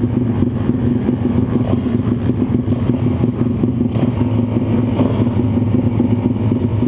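Small 140cc single-cylinder four-stroke pitbike engine idling steadily, close to the microphone, with no revving.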